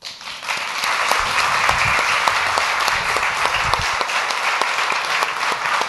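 Audience applauding, starting suddenly and holding steady.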